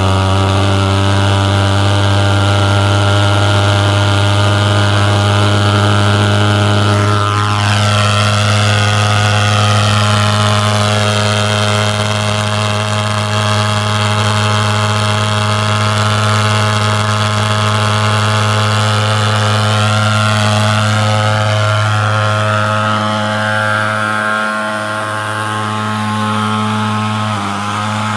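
Thermal fogging machine's pulse-jet engine running with a loud, steady buzz, faltering briefly twice near the end.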